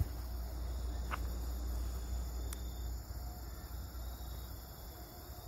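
Steady chorus of insects holding several high, unbroken tones, over a low rumble, with two faint clicks about one and two and a half seconds in.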